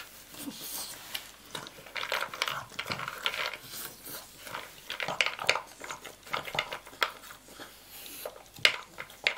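A dog eating out of a slow-feeder bowl with raised knobs: irregular clicking and clattering of food and bowl as its muzzle works between the knobs, with chewing.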